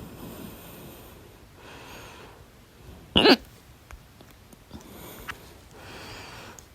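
A single loud, sharp hiccup with a short voiced 'hic' about three seconds in, between soft breaths.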